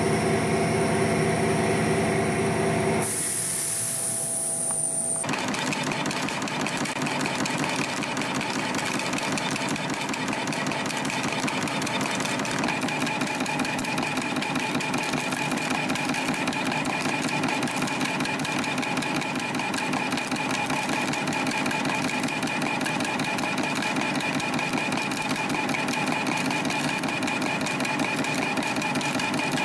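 CNC spring coiling machine running at production speed, coiling and cutting 0.6 mm wire springs at about 300 a minute: a steady, fast mechanical clatter with a constant whine. The first few seconds carry a different, humming sound before the steady clatter sets in.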